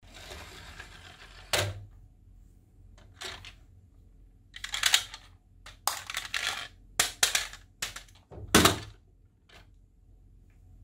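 Small toy cargo truck being handled: irregular clicks, taps and clatter as it is turned over in the hands and set down on a hard surface, with sharp knocks about one and a half seconds in and again near the end.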